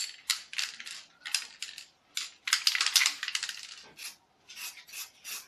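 Aerosol can of white spray paint hissing in many short bursts, with a quicker run of bursts about halfway through.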